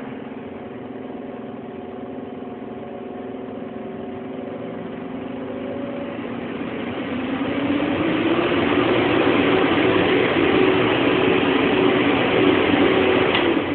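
Fireplace insert's twin blower fans running with a steady hum, then speeding up about six seconds in: the hum rises in pitch and a louder rush of moving air builds and holds.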